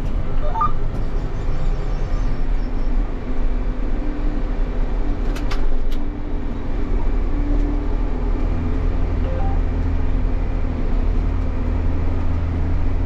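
John Deere 6150R tractor's six-cylinder diesel engine running steadily under load, heard from inside the cab, with its low drone strengthening somewhat in the second half. Two short clicks sound around the middle.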